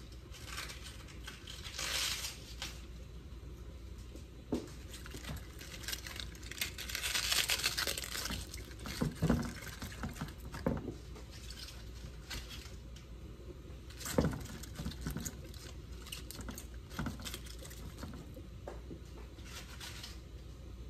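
Fresh green cabbage leaves being torn apart by hand and dropped into a pan holding a little water: crisp tearing and rustling, with a few short knocks.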